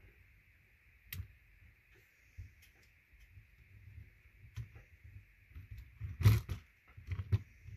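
Plastic LEGO Technic model being handled and moved on a tabletop: scattered light clicks and knocks of plastic parts, with the loudest knock about six seconds in and a quicker cluster near the end.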